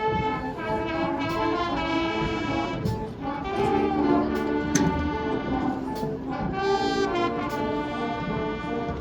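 High school marching band playing: brass sustaining chords that change every second or so, over sharp percussion hits.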